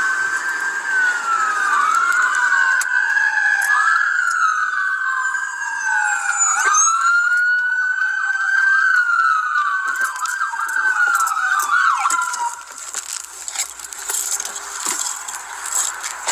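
Police car sirens wailing, two of them overlapping and rising and falling out of step with each other, cutting off about twelve seconds in. After that come scattered knocks and clatter.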